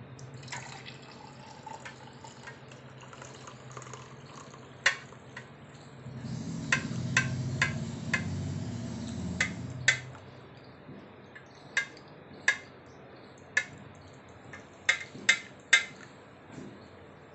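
Hot turmeric milk poured from a steel saucepan through a steel tea strainer into a mug, the liquid trickling and filling, heavier for a few seconds in the middle. Sharp metallic clinks come now and then, loudest and closest together near the end.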